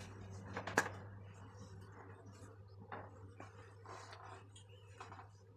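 Quiet room tone with a steady low electrical hum, one sharp click about a second in, and faint soft brushing of a paintbrush on paper.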